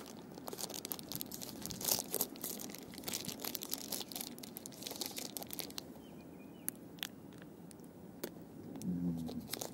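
Plastic energy-bar wrapper being torn open and crinkled, with a dense crackling that thins out to scattered crackles after about five seconds.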